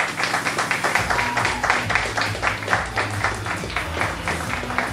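Upbeat stage-show music with a bass line and a fast, steady beat of rhythmic clapping, several claps a second. It starts abruptly at the opening.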